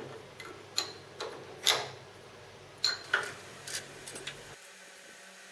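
Light metallic clicks and knocks from metal parts and tools being handled in a machine shop, about eight of them at uneven intervals. About four and a half seconds in, the low background hum cuts off abruptly.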